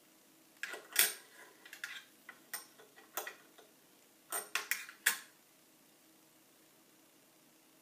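Metal throat plate of a Singer 401 sewing machine being set into the machine bed: a string of light metallic clicks and short scrapes, loudest about one second in and again about five seconds in.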